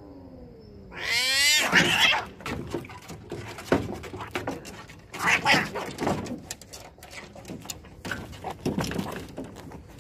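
Two domestic cats fighting. A low yowl rises in pitch about a second in and breaks into loud screeching as they lunge at each other, followed by repeated bursts of screeching and scuffling.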